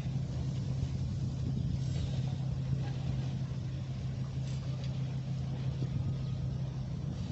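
Steady low hum of a large passenger motor ship's engines running, over a faint rumbling wash.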